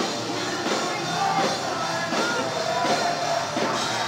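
Heavy metal band playing live, with guitars, drums and a singer's voice over them.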